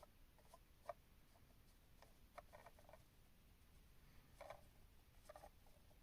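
Near silence: room tone with a few faint, short clicks and light rustles scattered through it.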